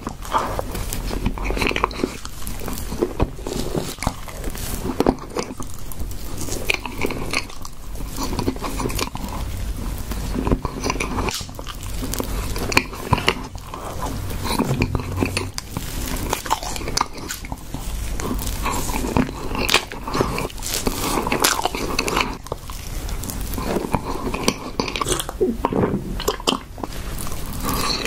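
Close-miked chewing and wet mouth sounds of a person eating soft tiramisu cake by the spoonful, a steady run of many small irregular smacks and clicks.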